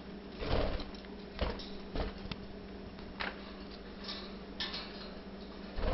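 Budgies pecking at and scattering egg food in their cage: irregular light taps and clicks a few times a second apart, over a steady low hum.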